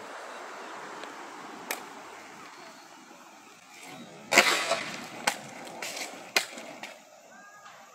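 Freestyle skateboard on a hard court: wheels rolling, then sharp clacks of the deck and wheels hitting the ground during tricks. The loudest clack comes a little over four seconds in, followed by a few lighter ones.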